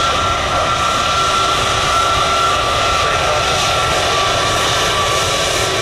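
Jet airliner engines running, a loud steady rush with a high whine over it.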